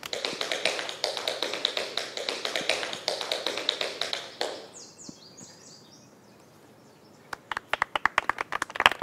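Guests applauding, dense clapping that dies away after about four seconds; a few faint high chirps follow, then scattered individual claps start again near the end.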